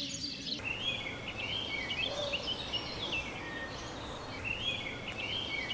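Songbirds singing in broadleaf woodland: short phrases of clear notes repeating every second or so, over a steady low background hiss.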